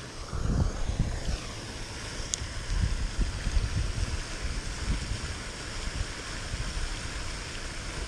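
Wind buffeting the microphone in uneven gusts, over a steady splashing hiss from a pond fountain. A single sharp click comes about two seconds in.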